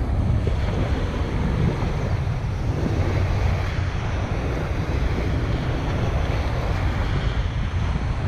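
Wind buffeting the microphone in a steady low rumble, over the wash of small waves breaking against a river embankment.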